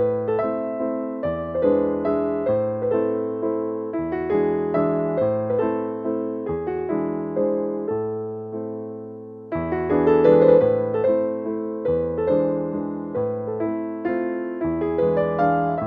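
Background piano music: a melody of struck notes that die away, over chords and a bass line that steps along.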